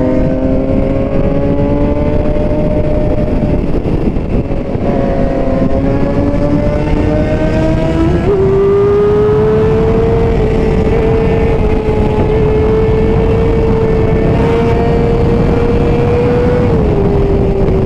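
Sport motorcycle engine running under way with wind rush. The engine note climbs slowly, steps up about eight seconds in, holds steady, then drops near the end.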